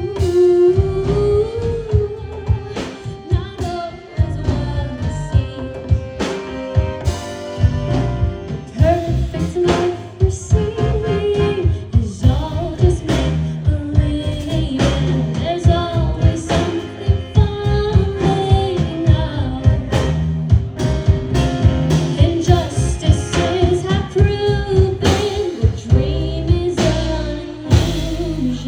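Live band performing a song: a woman singing lead over guitar, bass and drum kit with a steady beat.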